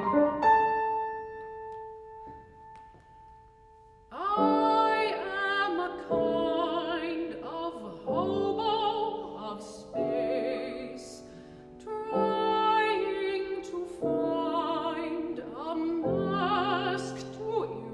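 Mezzo-soprano singing an art song with vibrato, accompanied by a grand piano. A held note dies away over the first few seconds, then piano chords sound about every two seconds under the voice.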